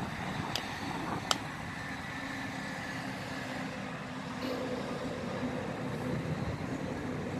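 Steady road-traffic noise with a low, steady engine hum that comes in about halfway through, and a couple of short sharp clicks in the first second and a half.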